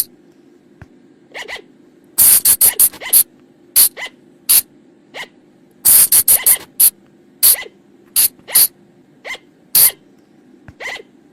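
Sunda colugo (flying lemur) calling: a string of short, sharp, very high-pitched squeaks, some single and some in quick clusters of three or four, over a faint steady hum.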